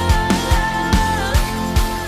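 Background music with a steady beat and a sustained melody line.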